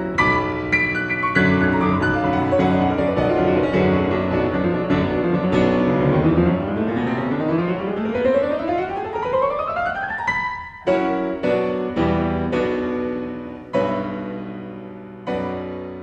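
Piano music: a flowing passage, then a long rising run up the keyboard, then a handful of separate struck chords, the last one ringing out and fading.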